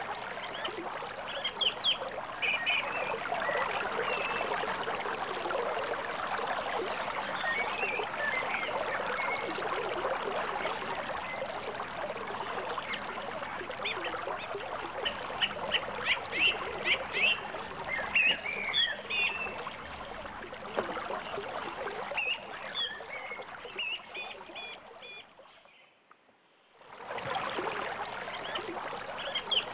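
Creek water running steadily, with birds chirping and calling over it. The sound fades away for about a second near the end, then the running water comes back.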